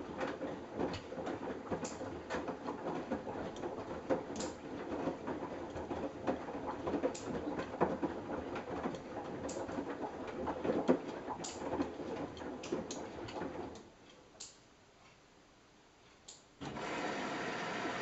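Samsung Eco Bubble front-loading washing machine mid-wash: the drum turning, with wet laundry sloshing and knocking inside it. About fourteen seconds in the drum stops and it goes nearly quiet for about three seconds, then a steady machine noise starts suddenly.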